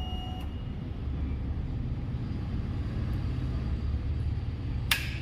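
Jawa motorcycle's single-cylinder engine idling steadily with a low rumble. A single sharp click comes about five seconds in.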